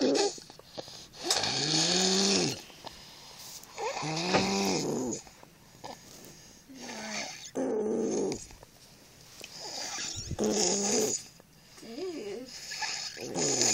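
A six-year-old child snoring, about five snores spaced every two to three seconds, each a wavering pitched rattle that rises and falls over a breathy hiss.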